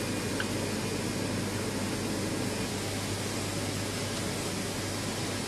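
Steady background hiss with a constant low hum.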